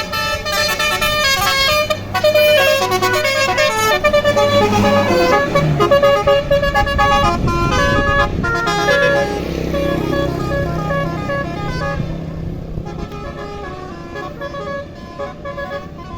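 A bus's Basuri telolet musical horn plays a fast multi-note tune over the bus engine running. The tune grows quieter and thinner in the last few seconds.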